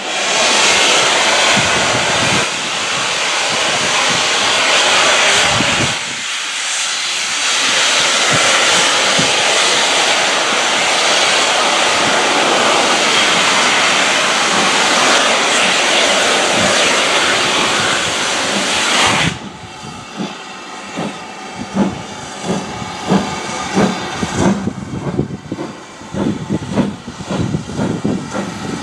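Steam locomotive blowing off a loud, steady hiss of steam that cuts off suddenly about two-thirds of the way through, followed by a quick run of short beats.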